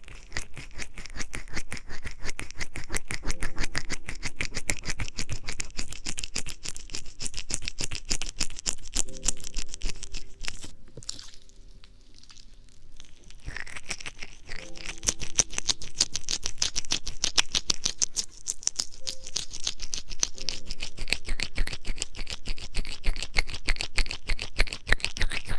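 Fingers rubbing and patting on the ear pads of a binaural ASMR microphone, a fast, dense crackle. It thins out and quietens for a couple of seconds about 11 seconds in, then picks up again.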